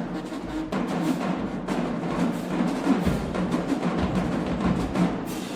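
HBCU-style college marching band playing loud, with sustained brass over steady drumline hits.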